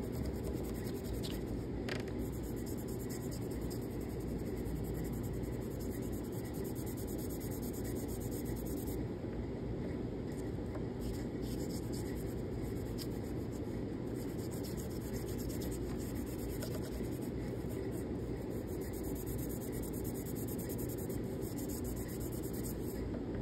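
Chalk pastel stick rubbed back and forth on paper in many quick, steady strokes, colouring in a broad area, over a steady low room hum.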